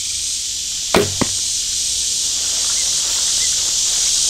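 An arrow from a Black Widow PCH recurve bow being shot and striking a foam 3D moose target: two sharp knocks a quarter second apart, about a second in.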